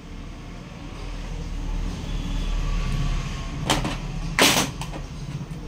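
Hands handling the printer's parts: a short scrape or rustle, then a louder one near the end, over a steady low hum.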